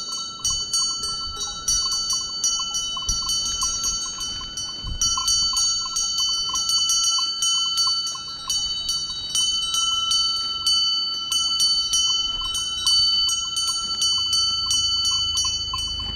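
Cowbell on a grazing cow's collar clanking in a quick, irregular run of strikes, its ringing tones carrying on between strokes.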